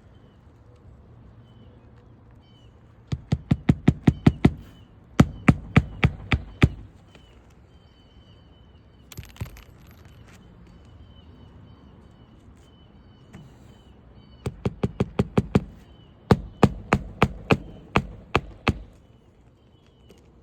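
A hammer nailing a new asphalt roof shingle in place: four quick runs of sharp blows, each run of about eight to ten strikes, plus one lone pair of strikes between them.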